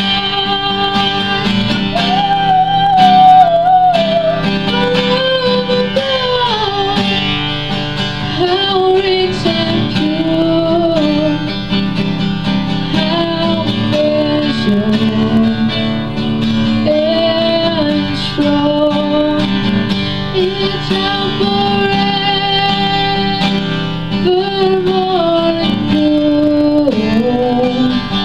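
Solo female voice singing a slow hymn melody in long, bending held notes, over strummed acoustic guitar.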